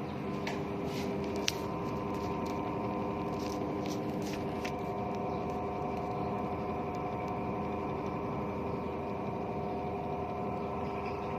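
Toshiba washing machine running with a steady hum made of several constant tones. A few light clicks come in the first five seconds, the sharpest about a second and a half in.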